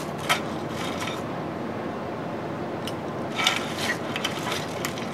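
A few small clicks and clinks of metal parts or hand tools being handled, over a steady background hiss.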